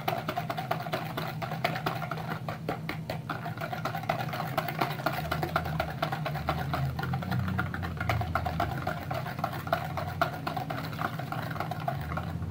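Wire hand whisk beating a runny egg batter in a bowl: fast, even clicking of the tines against the bowl, over a steady low hum.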